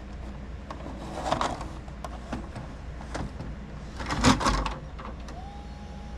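A VHS cassette being pushed into a Memorex four-head VCR. There are scattered clicks, then a loud clunk about four seconds in as the loading mechanism takes the tape. The loading motor's whine starts near the end.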